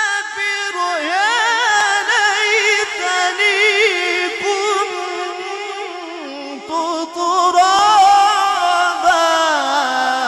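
A young man's voice chanting Quran recitation in a melodic, ornamented style, holding long, high, wavering notes that step down lower about six seconds in.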